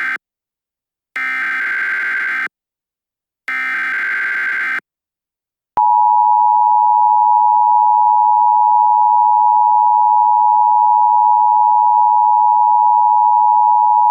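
Emergency Alert System SAME header data bursts, warbling digital tones sent in quick repeats about a second apart, with the last of three ending near five seconds in. About six seconds in, the steady two-tone EAS attention signal starts and holds, the alarm that announces an emergency broadcast.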